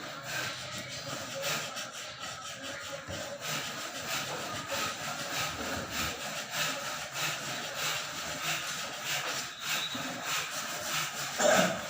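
Hand sanding with sandpaper: quick, steady back-and-forth rasping strokes, about three a second, with one louder stroke near the end.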